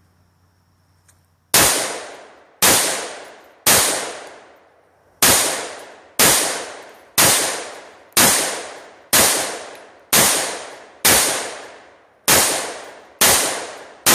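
Bushmaster AR-15 rifle firing 5.56 rounds in semi-automatic, about a dozen sharp shots roughly one a second, each followed by a fading echo, starting about a second and a half in, with one slightly longer pause after the third shot. The string empties the magazine.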